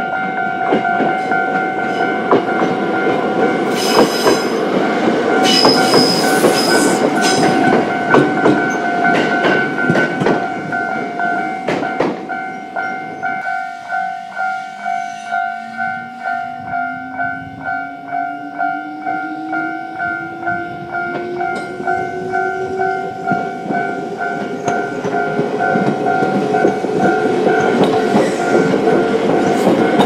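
Japanese level-crossing warning bell ringing steadily and repeatedly while a Choshi Electric Railway train passes over the crossing, with a rumble and sharp clicks of wheels over the rail joints. About halfway through, the train's motors set up a whine that rises steadily in pitch as it accelerates away.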